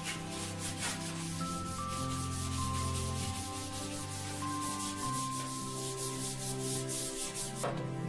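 Stiff scrub brush scrubbing a wet stainless-steel sink in quick back-and-forth strokes, several a second, stopping near the end.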